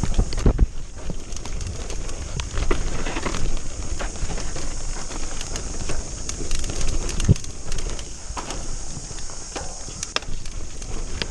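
Mountain bike ridden fast down a dirt trail, heard from a camera on the rider or bike: tyres crunching over dirt and the bike rattling, with sharp knocks over bumps, strongest about half a second in and again past seven seconds, under a steady hiss.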